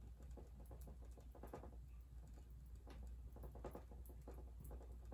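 Faint, irregular soft taps of a paintbrush dabbing paint onto a stretched canvas, over a low steady hum.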